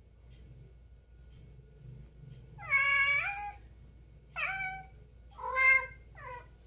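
Domestic cat meowing four times, starting about two and a half seconds in. The first meow is long and the loudest, the next two are shorter, and the last is a brief chirp.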